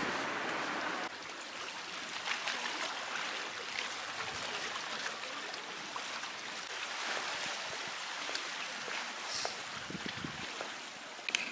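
Running water: a steady, even rush with no rhythm, a little quieter from about a second in.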